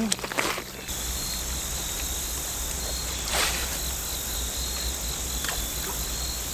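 Crickets chirping in an even, pulsing chorus, with a low rumble of wind underneath and a brief swish about three seconds in.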